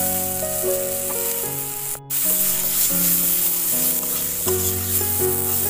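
Cashews and raisins with chopped tomato and whole spices sizzling in hot oil and ghee in a kadai, stirred with a steel spatula. The sizzle cuts out for an instant about two seconds in, and a background tune plays under it.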